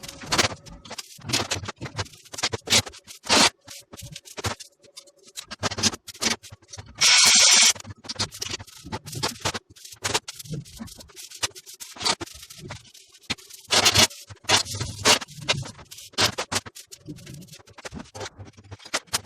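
Irregular scraping and scratching strokes, with a short hiss about seven seconds in.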